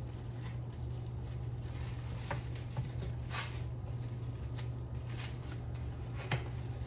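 Soft rustles and a few light taps from hands rolling a sushi roll, over a steady low hum.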